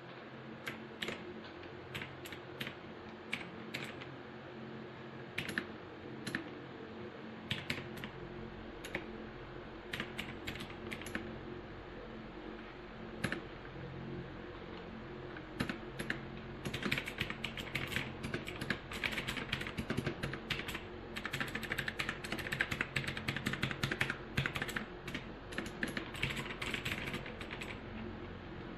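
Rapoo V500 Pro mechanical keyboard with clicky blue switches being typed on. The keystrokes are scattered at first, then turn into fast continuous typing a little past halfway, over a faint low hum.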